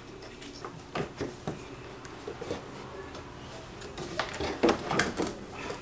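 Hard plastic engine cover being handled and worked loose, with a few light clicks about a second in and a cluster of louder knocks and rattles near the end.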